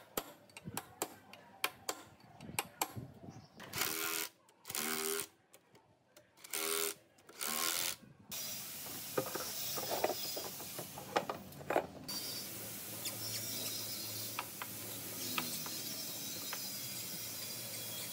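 Hand tools clicking against the metal of the machine, then four short bursts of a ratchet wrench tightening a bolt. From about eight seconds a steady hiss runs on, with a few scattered metal clicks.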